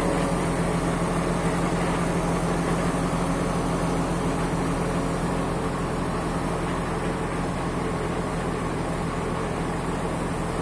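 Truck engine running steadily at idle to drive the truck-mounted HDS loader crane's hydraulics while the crane lifts a pallet of blocks.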